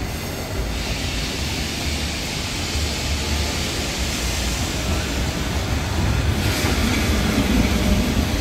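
Wet-street traffic: cars driving over rain-wet cobblestones with tyre hiss, and a vintage electric tram running on its rails. The noise grows louder in the last couple of seconds.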